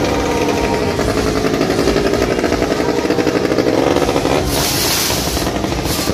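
Motorcycle engine revving and running steadily, its pitch wavering up and down. A loud hissing burst comes in about four and a half seconds in and lasts about a second, with a shorter one near the end.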